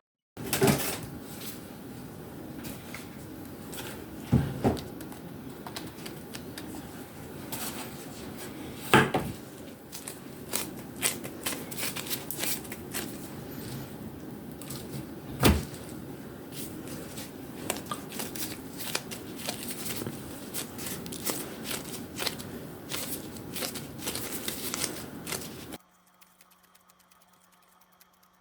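Close-up kitchen handling noise from cookie making: a steady patter of small clicks, taps and crackles, with a few louder knocks about 4, 9 and 15 seconds in. It cuts off abruptly near the end.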